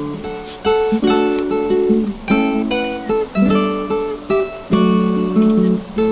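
Background music: acoustic guitar strumming and picking chords, a new chord struck about every half second.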